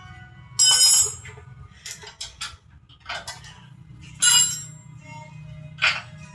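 Sharp metallic clinks of metal striking metal, three loud ones (about half a second in, just after four seconds and near six seconds) with weaker taps between, over a steady low hum and background music.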